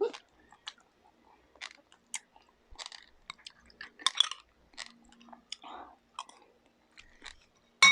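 Close-up mouth sounds of eating: irregular wet chewing and lip-smacking of soft food, with a louder sharp click right at the end.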